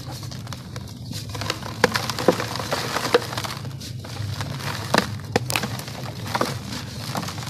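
Dry, dusty sand-cement balls crunching and crumbling in bare hands, with a constant gritty crackle and several sharp cracks as chunks break apart, the loudest about two and five seconds in. Loose sand and grit pour from the fingers into the tub. A steady low hum runs underneath.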